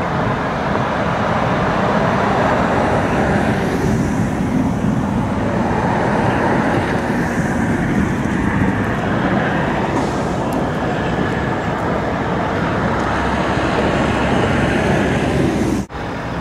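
Steady highway traffic noise from passing vehicles, rising and falling gently, with a brief sharp dropout near the end.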